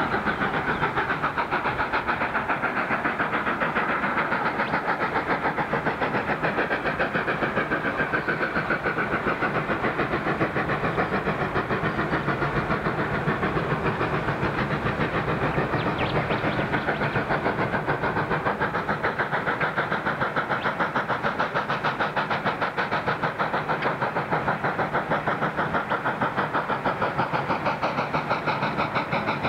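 South Maitland Railways 10-class 2-8-2T steam tank locomotive working hard, its exhaust beating in a fast, even rhythm.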